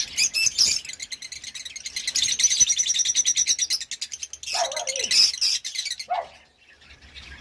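Green Indian ringneck parakeets calling during mating: a fast, even chatter of high chirps lasting about four seconds, then a few shorter, lower calls.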